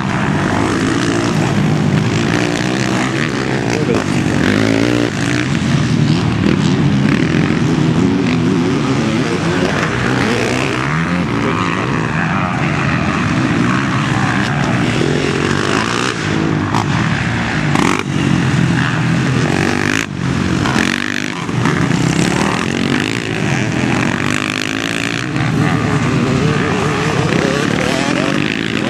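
Motocross motorcycles racing, their engines revving up and down as the riders work through the track, with a few sharp clicks about two-thirds through.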